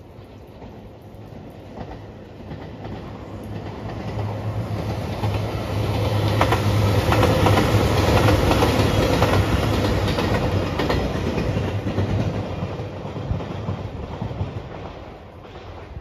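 JR Shikoku 2700 series diesel limited express train passing, its engine drone building to a peak about halfway through and then fading away. A run of wheel clicks over the rail joints comes while it is closest.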